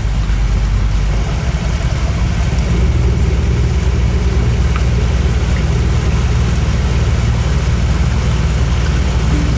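Kent 28 motor cruiser's inboard engine running steadily while underway, with a low, even drone.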